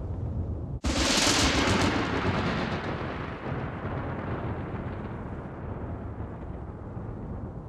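A sudden loud boom about a second in, crackling at first and then dying away over several seconds above a steady low rumble: a dramatic trailer sound effect.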